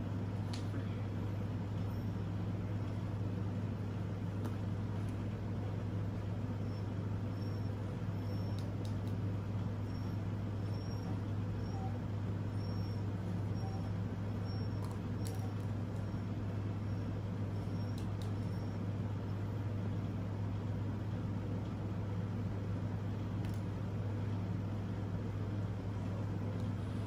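Steady low mechanical hum, even throughout, with faint short high chirps repeating for several seconds through the middle.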